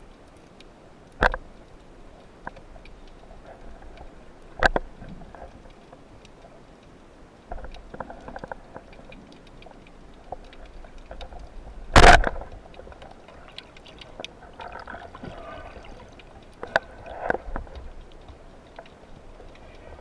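Underwater recording: a low steady water hiss broken by several sharp knocks and clicks, the loudest and longest about twelve seconds in.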